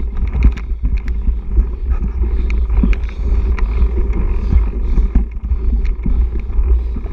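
On-board sound of a mountain bike ridden over a dirt forest trail: a steady wind rumble on the camera microphone, with scattered rattles and knocks from the bike over the bumps.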